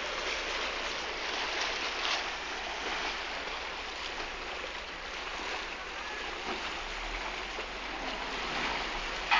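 Steady rush of water moving and lapping on the bay, with a low rumble underneath that grows a little about seven seconds in.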